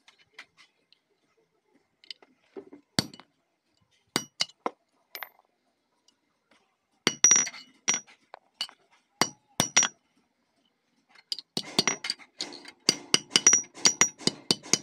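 Small hammer striking thin sheet metal on a steel anvil block, each blow with a short high metallic ring. The blows are scattered at first, then come quickly, several a second, in the last few seconds.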